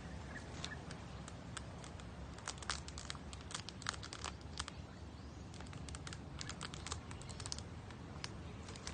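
Thin plastic crinkling and crackling in irregular clusters of sharp clicks as a small plastic cup is handled and tied to a cord.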